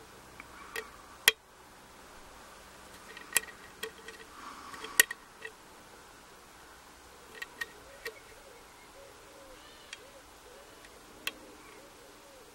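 Lock pick and tension tool working the pins of a pin-tumbler euro cylinder during single-pin picking: scattered sharp metal clicks a second or more apart, with faint scraping between them as the hook probes and sets the pins. The two strongest clicks come about a second in and about five seconds in.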